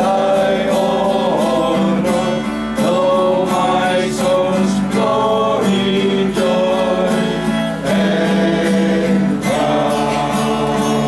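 Voices singing a hymn together to strummed acoustic guitar.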